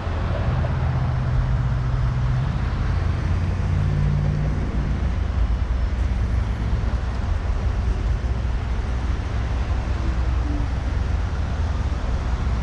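Suzuki GSX-R 750 inline-four engine idling with a steady low rumble and a faint hum that shifts slightly in pitch.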